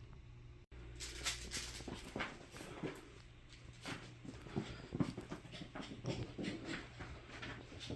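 A dog making short, irregular whimpering noises just after its bath, which the owner takes for the dog being mad at being clean.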